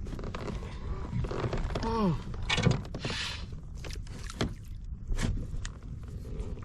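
Knocks and thunks of handling on a fishing kayak while a hooked fish is being fought, over a steady low rumble like wind on the microphone, with a short falling vocal exclamation about two seconds in.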